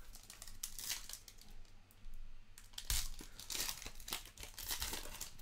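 Foil trading-card pack wrapper being torn open and crinkled by hand, in irregular crackles, loudest about three seconds in.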